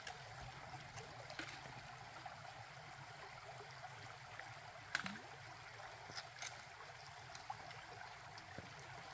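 Shallow mountain creek running steadily and faintly over rocks, with a short knock about five seconds in.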